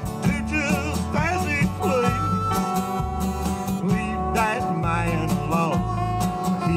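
Live country band music with no singing: bass and drums keep a steady beat while a lead instrument plays bending, wavering notes over guitar.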